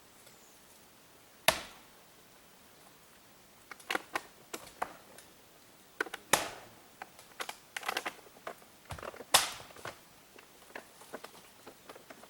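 Scattered sharp clicks and knocks over a quiet background: three louder knocks spread across it, with clusters of smaller ticks between.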